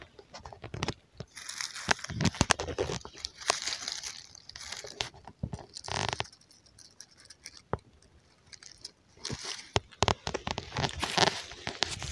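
Dry fallen leaves crunching and rustling in irregular bursts, with many small clicks, as someone moves and handles things in the leaf litter; it goes quiet for a couple of seconds past the middle, then the rustling picks up again.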